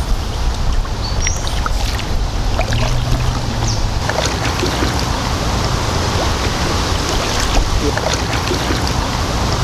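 Kayak being paddled on a creek: water dripping and splashing off the paddle in many small irregular ticks, over a steady low rumble of wind on the microphone.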